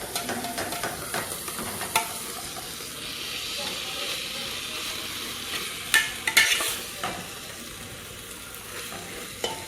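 Chicken and tomato-sauce pie filling sizzling in a pan as it is stirred with a spoon, with a steady hiss and a few clicks of the spoon against the pan, about two seconds in and again around six seconds in.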